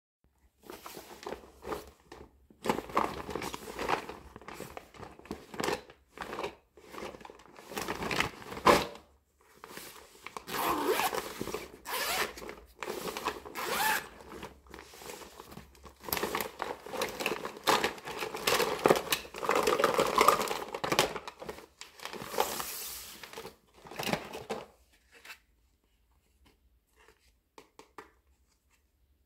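Zipper on a clear vinyl toy-storage bag being pulled open in a series of noisy strokes with short pauses, mixed with the vinyl rustling as it is handled. After about 25 seconds the sound drops to near quiet with a few faint taps.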